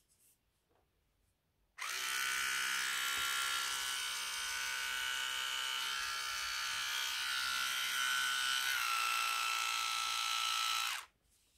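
DM Dentodent Active Young electric toothbrush switched on, its motor running with a steady buzz for about nine seconds. The pitch shifts slightly near the end, then the motor is switched off and stops abruptly.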